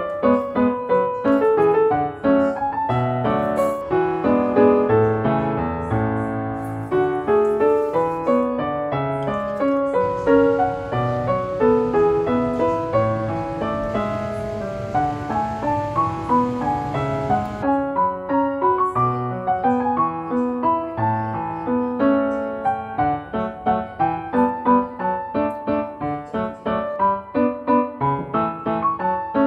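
Background piano music: a light melody of quick notes over a gentle accompaniment.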